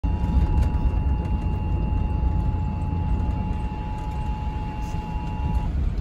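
Emergency Alert System attention signal, the steady two-tone alert (853 and 960 Hz), playing through the car's FM radio speaker and stopping just before the end. Under it runs the steady low road and engine rumble of the moving car.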